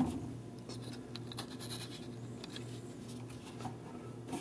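Faint scratching and rubbing of leather knife sheaths being slid and handled on a cutting mat, with a light tap at the start and another near the end, over a low steady hum.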